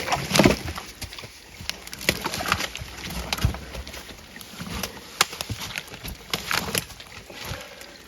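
Irregular crunching and snapping of dry leaves, twigs and brush underfoot as a harvested deer is dragged through the woods.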